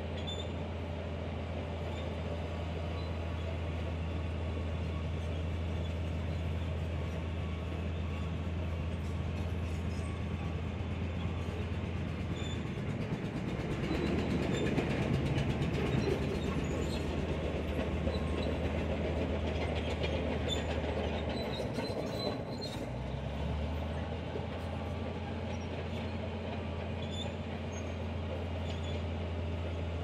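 Komatsu bulldozer's diesel engine running steadily under load while pushing sand. The engine note dips twice, about 13 and 22 seconds in, and the sound is louder and rougher in between.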